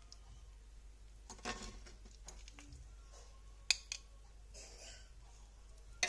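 A serving utensil clinking and scraping against a ceramic plate and roasting pan while soft potatoes and sauce are spooned onto the plate: a few light clicks with a soft wet squish, the sharpest click a little under four seconds in.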